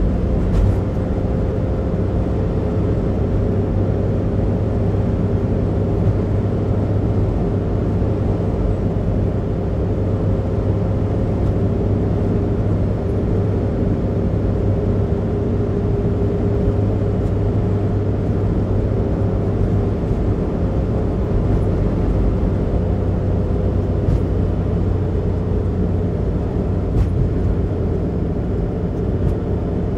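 Steady in-cabin road noise of a car cruising on an expressway: an even low rumble of tyres and engine with a faint steady hum.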